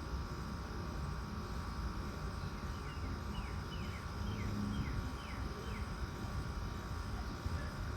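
Central air conditioner condensing units running steadily with a constant hum. Partway through, a bird calls a quick series of about seven falling chirps.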